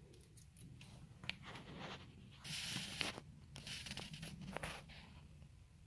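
Faint handling noise: scattered light clicks and short scrapes, with a brief rustle about two and a half seconds in.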